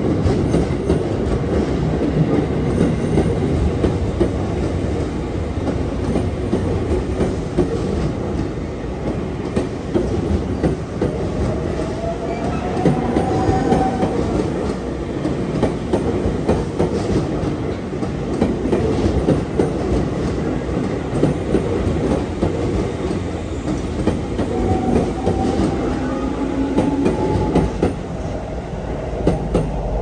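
An electric train passing close by over the tracks, its wheels clicking over the rail joints in a steady run of noise. A whine rises in pitch twice, about a third of the way in and again near the end.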